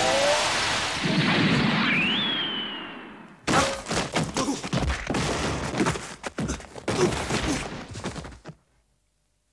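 Anime fight sound effects: a rushing blast of noise that fades away over about three seconds, with a whistling tone that rises and falls about two seconds in, then around five seconds of rapid crashing impacts as a body smashes into stone and debris flies. The crashing cuts off suddenly into silence near the end.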